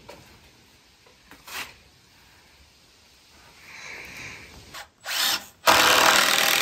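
Cordless impact driver driving a screw into 2x lumber: a short burst about five seconds in, then a longer loud run of over a second near the end as the screw is sunk.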